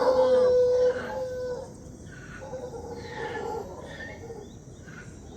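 Howler monkeys howling: a loud, long, deep call held on one pitch that dies away about a second and a half in, followed by quieter, shorter howls.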